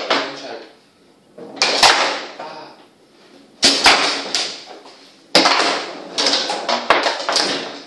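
Foosball table in fast play: sharp clacks of the plastic players striking the ball and the rods knocking against the table frame, in irregular clusters of a few strikes with short quiet gaps between.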